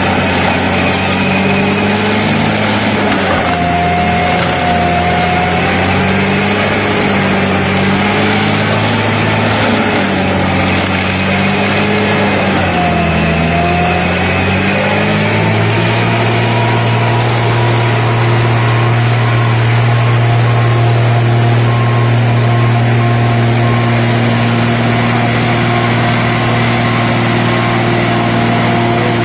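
An engine runs loudly and continuously. Its pitch wavers up and down through the first half, then holds steady from about halfway through.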